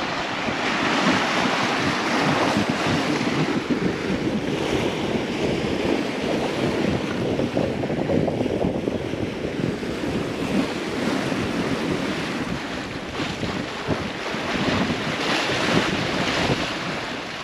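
Wind buffeting the microphone over the rush of waves along the hull of a sailing yacht under way, a steady noisy rush with no distinct events.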